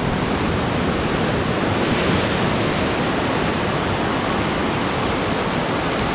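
Ocean surf breaking and washing on the beach, a steady rushing noise that swells slightly about two seconds in, mixed with wind on the microphone.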